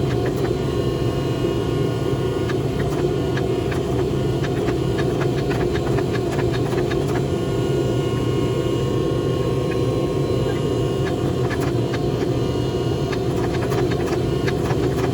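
A steady, even running noise of a forge, with faint scattered clicks.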